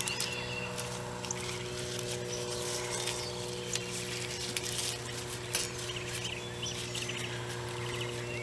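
Grapevine leaves and canes rustling and crackling as they are handled and bent around a trellis wire, with scattered short clicks. A steady low hum runs underneath, and a few short high chirps come through.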